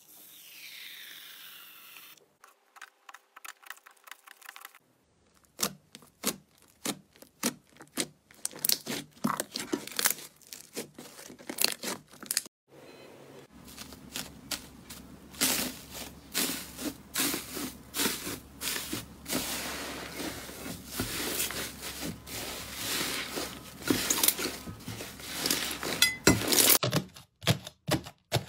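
Hands squeezing and poking slime in a string of short clips: quick crackling, popping and crinkling, with sudden changes in texture from clip to clip.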